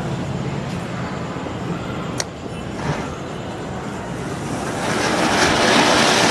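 Flower pot ground-fountain firework catching and spraying: a loud rushing hiss that swells up about five seconds in. Before that there is a steady background rush, with a single sharp click about two seconds in.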